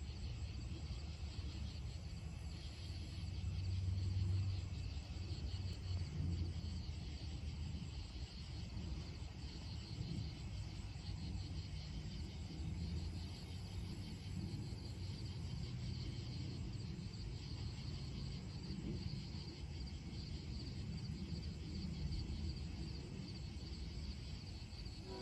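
Crickets or similar night insects chirping steadily in a fine, fast high trill, over a low rumble that swells slightly a few seconds in.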